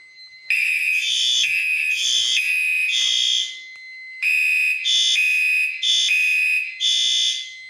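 Several electronic fire alarm horns sounding together on a system test, a shrill mix of high tones in repeated pulses, with a short break about three and a half seconds in before the pulses resume.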